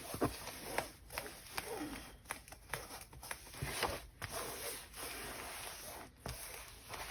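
Hands pressing and rubbing glued fabric onto a journal cover: faint, scattered rustling and soft taps.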